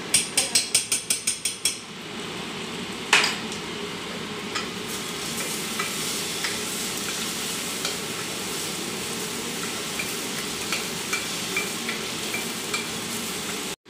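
Wooden spoon stirring and scraping in a stainless steel pressure cooker, a quick run of about ten strokes in the first two seconds and a single sharp knock about three seconds in, over steady sizzling of food frying in ghee with scattered small pops.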